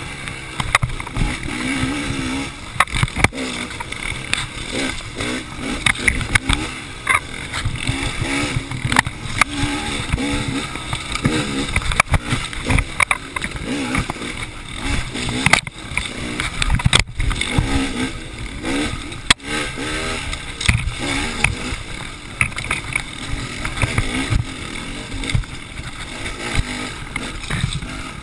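KTM 300 two-stroke dirt bike engine revving up and down as it is ridden over a rough trail, with a few sharp knocks from the bike hitting bumps or brush.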